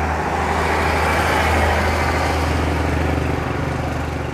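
Road traffic noise: a vehicle passing, its rushing noise swelling about a second and a half in and easing off, over a steady low hum.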